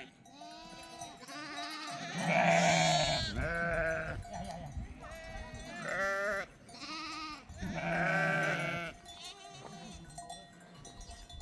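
A flock of sheep bleating, many calls overlapping one after another, loudest a couple of seconds in and again around eight seconds.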